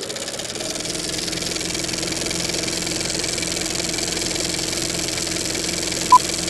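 A steady machine-like drone with a high hiss, holding one even pitch. A single short, high beep sounds near the end.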